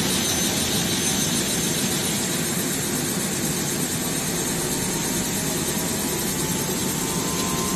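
AS350 B3 helicopter's turboshaft engine running through start-up: a steady turbine rush with a faint whine slowly rising in pitch in the second half.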